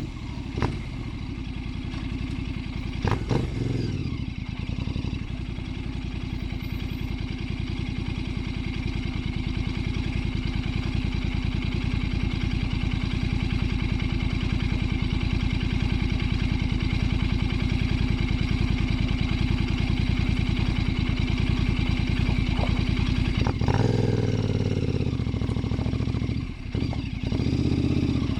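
Royal Enfield Bear 650's 648 cc parallel-twin engine running steadily under way, with a few sharp knocks in the first few seconds. The engine note changes about three-quarters of the way through, with a brief drop in level shortly after.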